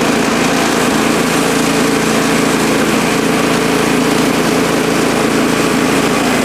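Woodland Mills HM130MAX bandsaw mill with its 14-horsepower Kohler Command Pro engine running at a steady, even note as the band blade takes a pass through an ash cant.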